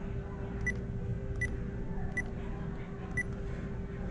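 Short electronic beeps from the checkout register, four of them evenly spaced about three-quarters of a second apart, over a steady low hum.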